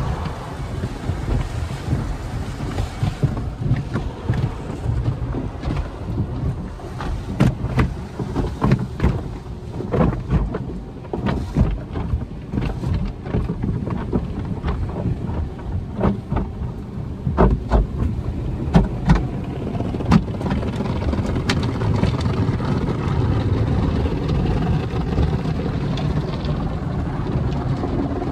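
Belanger/Econocraft tunnel car wash cloth brushes and hanging cloth strips slapping and rubbing over the car's body and glass, heard from inside the cabin, with water spraying. There are many sharp slaps through the middle, giving way to a steadier rush of spray near the end.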